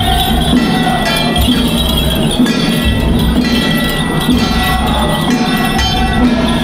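Loud Taiwanese temple-procession music: a steady drumbeat with ringing gongs and bells over it.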